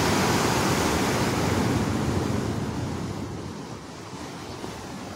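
Sea surf breaking and washing over shore rocks, a rushing noise that is loudest for the first couple of seconds and then dies down.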